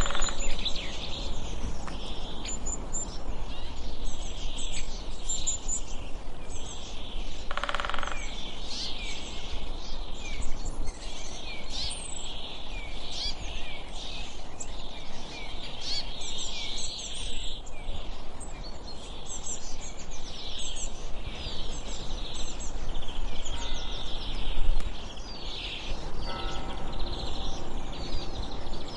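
Several birds chirping and singing in many short, quick calls over a steady low outdoor rumble. A bell-like ringing tone sounds briefly at the start and again near the end.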